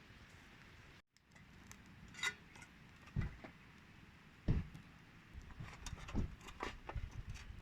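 Light clinks and clicks with several dull thumps of objects being handled, after a brief drop to silence about a second in.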